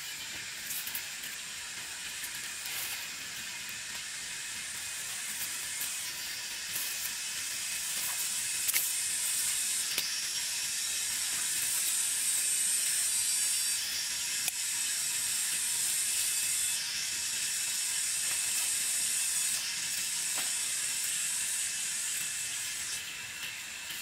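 High-pitched insect chorus buzzing steadily in waves that swell and cut off every few seconds, loudest in the middle, with faint clicks and rustles of weeds being pulled and cut by hand.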